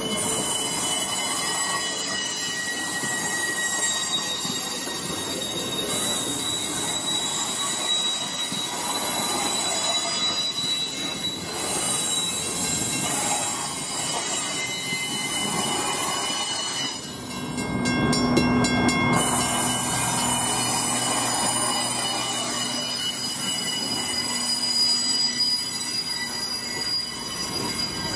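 Passenger train cars rolling past close by, their wheels squealing on the rails with steady high-pitched tones over the rumble of the wheels. Partway through comes a short run of clicks, followed by a low steady hum.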